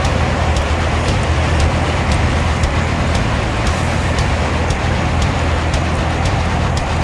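Steady rush of a fast-flowing river current, an even roar that does not change.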